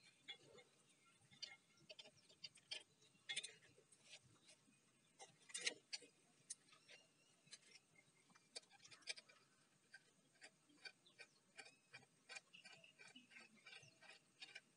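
Faint, irregular metallic clicks and light taps as a saw chain and bar are fitted to an angle grinder's chainsaw attachment and the chain tensioner screw is turned with a screwdriver. The loudest clicks come about six seconds in.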